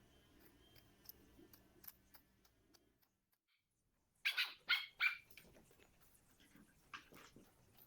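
Dog barking, four quick barks in a row about four seconds in, amid faint scattered ticks.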